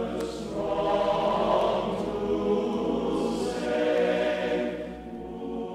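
Choral music, voices holding long sustained notes, fading out near the end.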